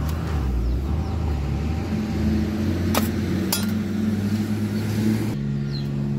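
Steady low hum of an idling vehicle engine, with two sharp metal clinks about half a second apart, three seconds in, from a steel serving spoon against a steel plate.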